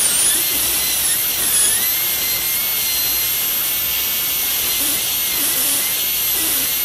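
High-speed dental handpiece with a carbide bur whining steadily as it cuts depth grooves into a plastic typodont molar. Its high pitch dips briefly several times as the bur bears on the tooth.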